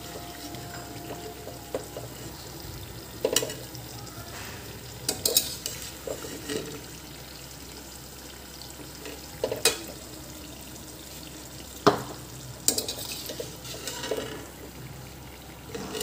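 Samosas deep-frying in hot oil in a kadhai, a steady sizzle, with a metal slotted spoon clinking against the pan now and then as they are turned and lifted out.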